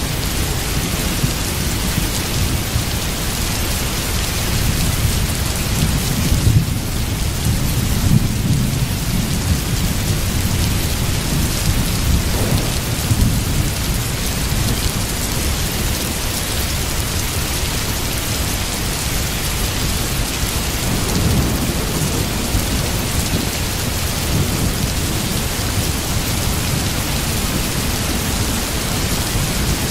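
Steady rain with low rumbles of thunder that swell now and then.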